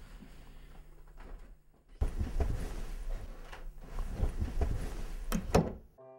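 Bedclothes rustling and a bed creaking and bumping as a boy shifts and scrambles about in it, ending in two sharp knocks.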